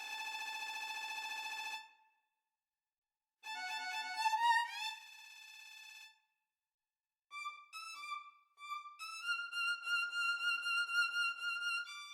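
MIDI-rendered solo violin playing birdsong-imitating figures: a rapidly repeated tremolo note, a pause, a phrase with a quick upward slide, a few short chirping notes, then a long high wavering note.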